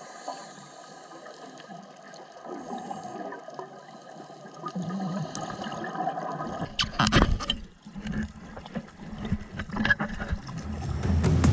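Underwater sound on a scuba dive: a low water hiss and gurgle, with a sudden loud rush of the diver's exhaled regulator bubbles about seven seconds in and smaller surges after it.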